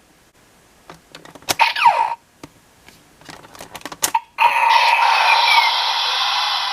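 Plastic clicks of a Kamen Rider Fourze DX Astro Switch toy being handled and operated, with a brief falling electronic sweep, then a loud electronic sound effect from the toy's small speaker that starts a little past the middle and lasts about two and a half seconds.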